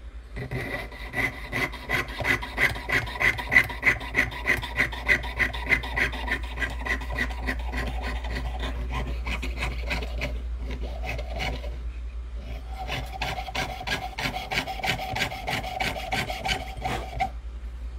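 Jeweller's saw cutting through copper sheet held on a wooden bench pin, with quick, even rasping strokes about three a second while a ring blank is cut out. It pauses briefly about two-thirds through. The sawing then resumes with a steady ringing tone in the blade and stops shortly before the end.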